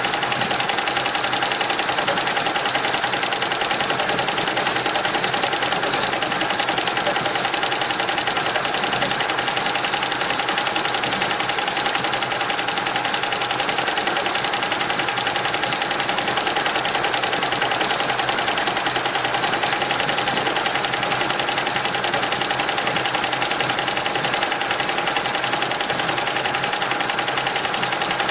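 Richpeace roll-to-roll multi-head embroidery machine stitching at speed: a rapid, even clatter of the needles with a steady whine.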